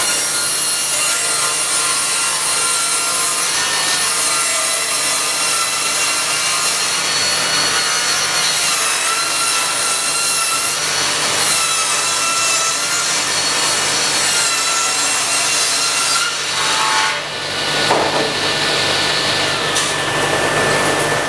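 Axminster Tools 10-inch table saw running and cutting through wood: a steady whine over the noise of the blade in the timber. About 17 s in, the sound dips and changes briefly, and it cuts off sharply at the end.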